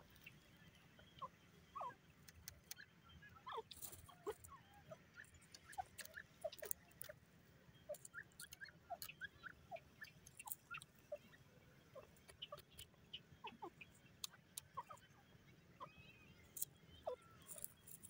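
Faint, scattered short bird chirps, many of them at irregular intervals, with occasional sharp clicks.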